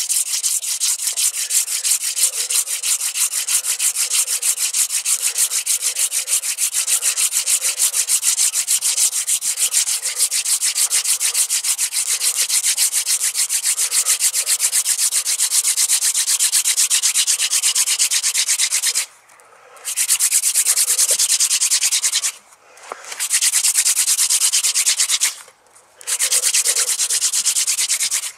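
A wooden hand-drill spindle being spun fast between the palms in a notched hearth board, wood grinding on wood in quick back-and-forth strokes. The drilling goes on steadily, then pauses briefly three times near the end as the hands reset on the spindle. It is the hard drilling stage of friction fire-lighting, building up a coal.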